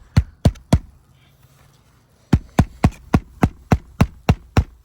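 Hammer driving roofing nails by hand through granule-surfaced asphalt shingles: three quick blows, a pause of about a second and a half, then a run of about nine blows, roughly four a second.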